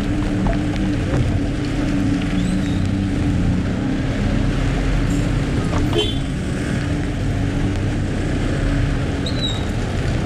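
Car driving in rain, heard from inside the cabin: a steady engine hum and road noise under an even hiss of rain and wet tyres, with scattered small clicks and a couple of faint short chirps.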